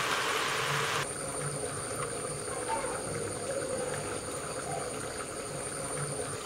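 A hiss that cuts off abruptly about a second in. It gives way to outdoor ambience with a steady, high-pitched insect drone.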